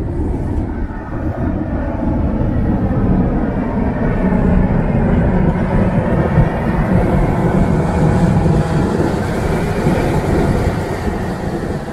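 Steady low rumble aboard a Searoad car ferry underway, growing a little louder midway and easing near the end.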